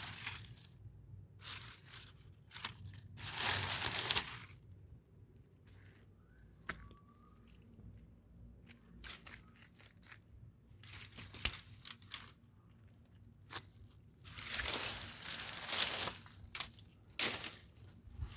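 Dry material being crumpled and torn by hand in irregular bursts, with pauses and a few sharp crackles in between.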